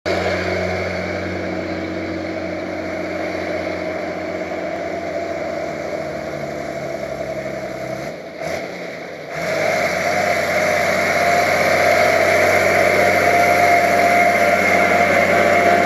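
Steady motor-vehicle engine and road noise picked up by a bicycle-mounted camera. It drops away briefly about eight seconds in, then comes back louder and stays louder as a truck draws near.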